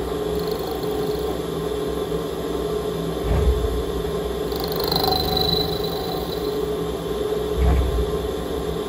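Haas VF2 CNC mill running with its spindle spinning, a steady mechanical hum with a steady mid-pitched tone. A brief high whine comes in about four and a half seconds in and fades out about a second later. There are low thumps at about three and a half and seven and a half seconds.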